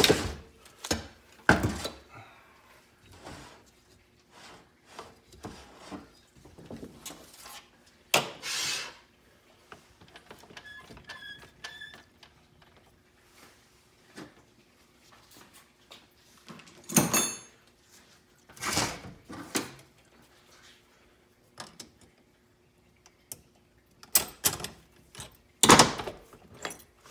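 Irregular clunks, knocks and clinks of steel 4L60E transmission parts (clutch drums, plates and case) being handled and set down on a steel workbench, a few of them louder than the rest, with a faint steady hum underneath.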